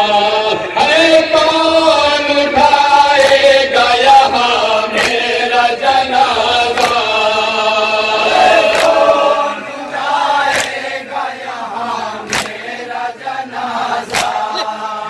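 Men chanting a noha, a Shia mourning lament, a lead voice with the group singing along, over sharp slaps about every two seconds from hands striking chests in matam. The singing drops away about two-thirds of the way through while the slaps go on.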